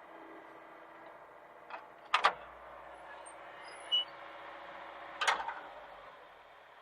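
Hitachi mini excavator's engine running steadily, with a double sharp knock about two seconds in and another cluster of knocks near five seconds.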